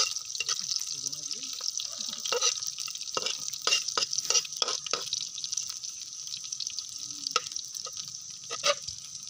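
Garlic and lemongrass sizzling in oil in a black wok, with a utensil scraping and clicking against the pan as they are stirred. The strokes come quickly at first and thin out after about five seconds, leaving mostly the steady sizzle.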